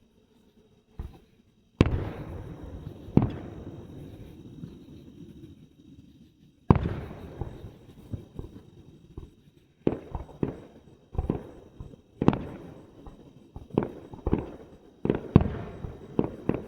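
Fireworks going off: three sharp bangs in the first seven seconds, each trailing off slowly, then a quicker run of bangs through the second half.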